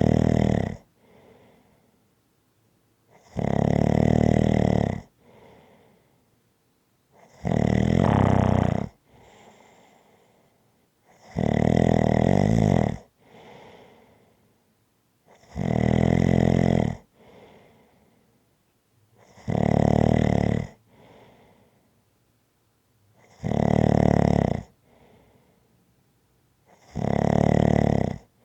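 Slow, regular snoring: eight loud snores, one about every four seconds, each about a second and a half long and followed by a much fainter breath.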